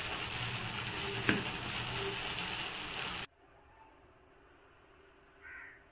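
A spoon stirring hot cooked tomato rice in a metal pot over a steady sizzling hiss, with one clink of spoon on pot a little over a second in. The sound cuts off suddenly after about three seconds.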